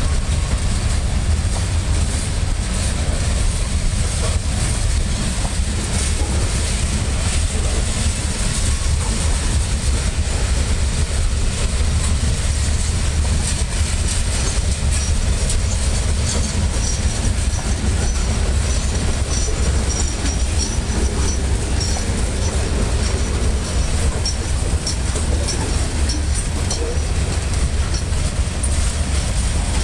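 Gondola cars of a long freight train rolling past close by, a steady rumble with wheel-and-rail clatter; a faint high wheel squeal comes and goes around the middle.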